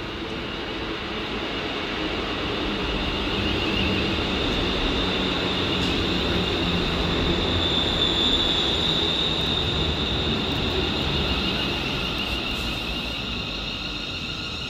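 A double Class 380 electric multiple unit running along the platform: wheel and rail rumble with a steady high-pitched squeal, growing louder to a peak about eight seconds in and then fading.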